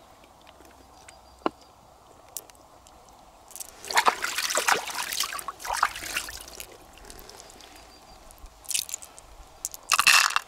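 Water sloshing and trickling for a few seconds as hands work in shallow river water. This is followed by short clattering bursts near the end as pearls are dropped into a small plastic dish.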